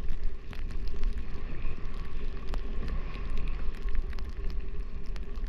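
Wind buffeting the microphone of a body-mounted camera as a skier descends, a steady low rumble, with the skis sliding and scraping over groomed snow and a few faint ticks.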